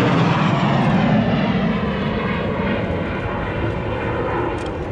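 A formation of Kawasaki T-4 twin-turbofan jets of the Blue Impulse team passing overhead. The loud jet noise is strongest in the first second or so, then slowly eases, with a falling pitch as the jets go by.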